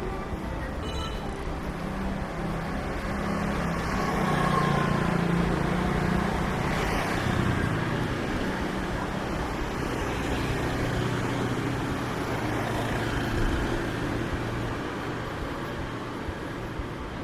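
Street traffic: a motor vehicle's engine running close by over a steady hum of road noise. It grows louder about four to seven seconds in, then drops to a lower, steadier note.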